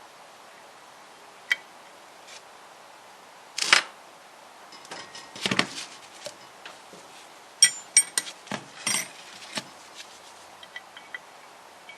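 Steel spanners and nuts clinking and knocking against each other and the cylinder head as two nuts are locked together on a head stud. Irregular sharp clinks, a few with a brief metallic ring, the loudest about a third and two thirds of the way in.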